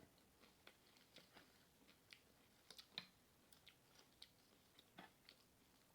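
Near silence broken by a dozen or so faint, scattered clicks and smacks of chewing nachos, unevenly spaced, with a slightly stronger one about three seconds in.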